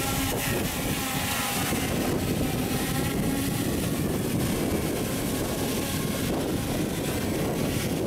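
Steady buzz of multirotor drone motors and propellers in flight, with wind noise on the microphone.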